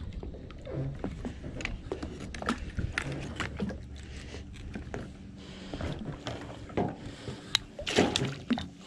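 Scattered knocks and clicks of a landing net and gear being handled against the side of a boat, then a splash as the net with a thrashing bass is pulled up out of the water near the end.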